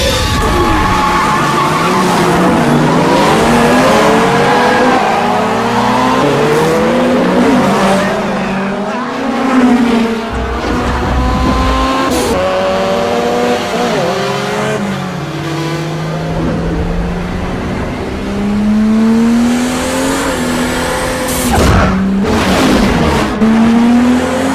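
Several street-race cars' engines revving hard under full acceleration, each pitch climbing and then dropping back with every gear change, overlapping one another, with tyre squeal and a couple of sharp cracks.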